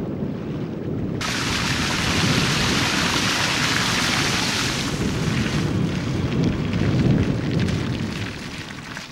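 Wind rumbling on the microphone, joined suddenly about a second in by a loud rushing hiss of water that holds for a few seconds and then dies away.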